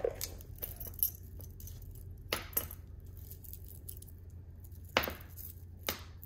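Beads of a chip-bead necklace and its gold-tone metal pendant clicking and clinking against each other as the necklace is handled, a few separate clicks: about a second in, twice around two and a half seconds, and twice near the end.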